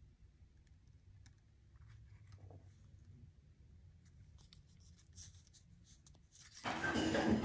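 Paper being handled: fingers pressing a glued die-cut cardstock fence onto a strip of green cardstock, with faint rustles and taps, then a louder rough rustle of card about a second before the end.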